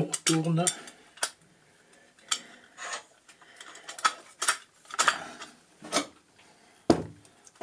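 Irregular clicks and knocks of metal parts being handled: aluminium and steel plates, one carrying a ball screw and its ball nut, shifted and set onto an aluminium-extrusion frame. One heavier, deeper knock near the end.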